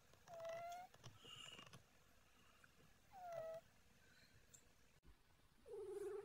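Sleeping tabby cat snoring with a faint squeaky, whistling tone on its breaths, three short squeaks about every two and a half seconds, the last one lower in pitch.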